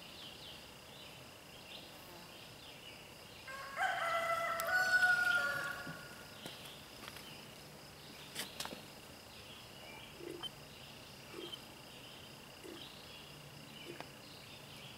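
A rooster crows once, about four seconds in, for about two seconds. Under it a steady high-pitched insect drone runs on, with a few faint clicks later.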